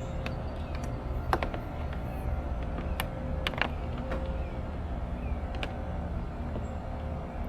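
Scattered sharp clicks and light knocks of hard parts being handled while a replacement spa controller is fitted into place, over a steady low rumble.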